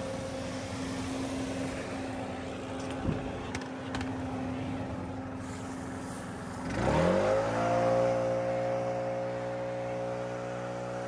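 Engine running steadily, then revving up about seven seconds in and holding at a higher steady speed. A short knock about three seconds in.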